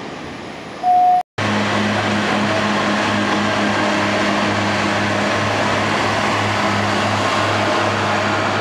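British Rail Class 142 Pacer diesel railbus: a short loud tone about a second in, then, after a break, the unit's underfloor diesel engine running with a steady low pulsing hum.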